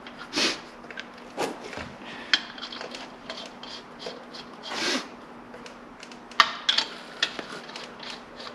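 Metal hand tools clinking and clattering as they are handled and set down: a few scraping shuffles and several sharp clanks, over a steady hum and faint regular ticking.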